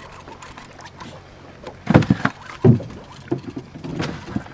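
Two loud, low thumps on a small boat about two seconds in, then a few softer knocks, over the boat's steady low background sound on open water.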